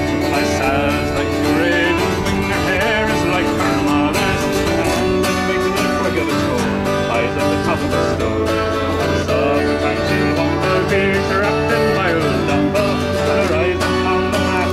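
Fiddle and acoustic guitar playing a lively folk tune together, with a wavering fiddle melody over the strummed guitar.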